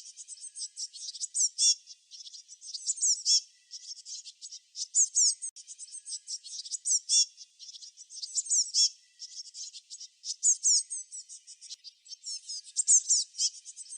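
Small songbirds chirping and twittering: rapid high-pitched chirps with quick falling notes, coming in bursts every second or two.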